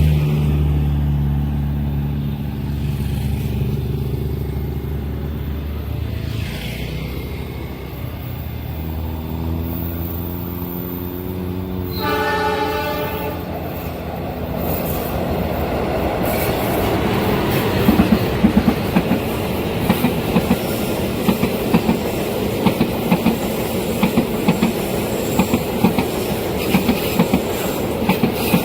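A train approaching with a low, steady diesel engine note, sounding one horn blast about twelve seconds in, then passing with a fast, regular clickety-clack of wheels over the rail joints as the carriages go by.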